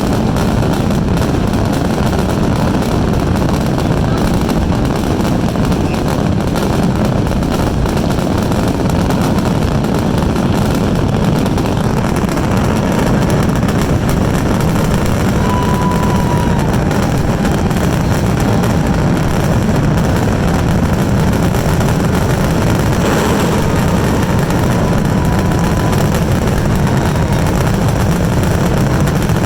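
Fireworks finale barrage: a continuous, loud rumble of overlapping booms with no gaps between them.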